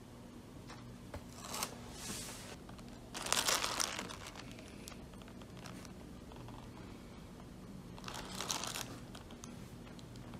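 Thin plastic wrapping under durian pieces crinkling in several short bursts as the fruit is nudged and handled. The loudest burst comes about three seconds in, another near the eight-second mark, with faint small ticks between.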